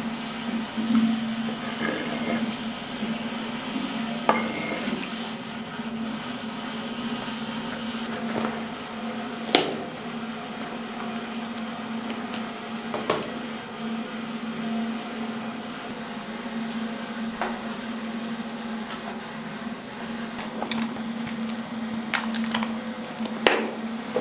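Scattered knocks and clinks of things being handled, a few seconds apart, over a steady low hum.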